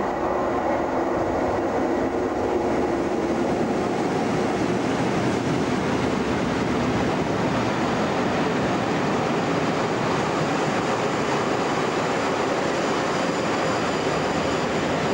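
Class 37 diesel locomotive with its English Electric V12 engine arriving with a passenger train. Its engine note is heard over the first few seconds, then the hauled coaches roll past with steady wheel-on-rail noise.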